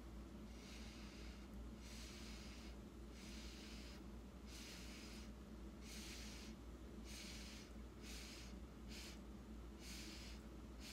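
Short puffs of breath blown through a drinking straw onto wet acrylic paint to push it across the canvas, about a dozen faint hissy puffs, a little more than one a second.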